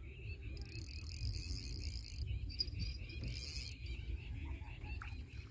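Insects chirping in a steady rhythm of about five pulses a second, over a low rumble of wind on the microphone. Twice a high buzzing hiss comes in, about half a second in for under two seconds and again briefly past the three-second mark.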